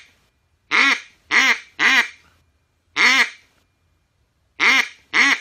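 Duck Commander Inferno double-reed duck call blown in quacks: a string of three quick quacks about a second in, a single quack around three seconds, then two more near the end. The call has a raspy, soft tone from its soft plastic body.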